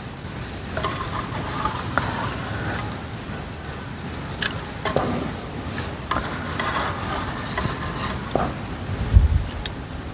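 Scattered light clicks and taps of fingers sorting scalded crickets in an aluminium mess tin, over a steady low outdoor rumble, with a single low thump about nine seconds in.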